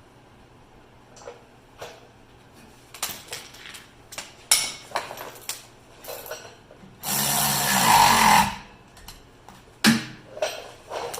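Metal tools and parts clinking and knocking, then a power drill runs in one burst of about a second and a half, about seven seconds in, followed by a few more knocks.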